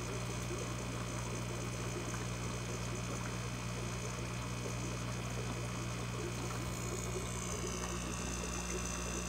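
Steady low electrical hum over a faint even hiss.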